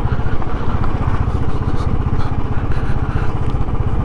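Single-cylinder motorcycle engine running steadily under way, with a rapid low pulsing and the noise of riding over a broken, gravelly road.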